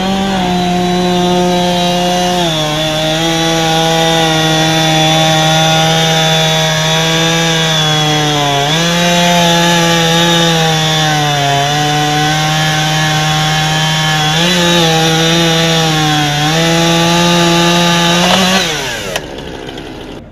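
Chainsaw cutting at high revs. Its pitch sags several times as it bogs down in the cut and rises again as it frees, then it winds down near the end when the throttle is let off.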